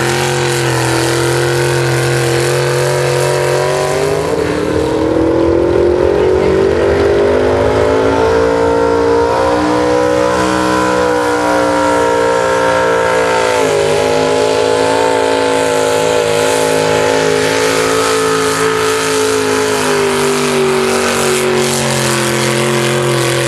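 A pro stock mini pulling truck's engine running hard at high revs through a pull under load. The pitch climbs from about four seconds in, holds high with a brief dip about halfway, then stays steady and loud.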